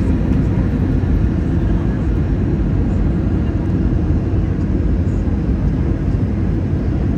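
Airliner cabin noise heard at a window seat: a steady, even rumble of engines and airflow, strongest in the low end.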